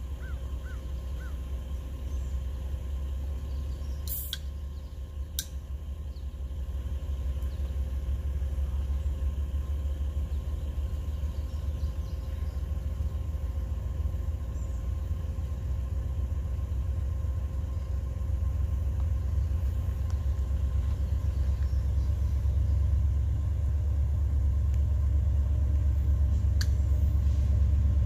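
Low, steady engine rumble from a heavy vehicle, growing slowly louder, with a few sharp clicks about four and five seconds in and near the end.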